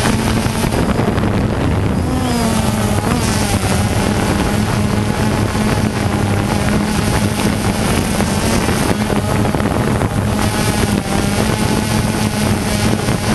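DJI Phantom 2 quadcopter's motors and propellers humming steadily in flight, with wind buffeting the on-board camera's microphone.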